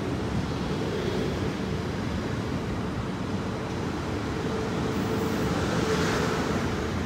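South Western Railway Class 450 Desiro electric multiple unit running past, a steady rumble of wheels on rail with a faint steady hum, swelling a little about six seconds in.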